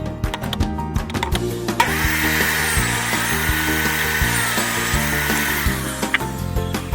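A power tool runs for about four seconds from about two seconds in, its whine rising and falling in pitch, over steady background music.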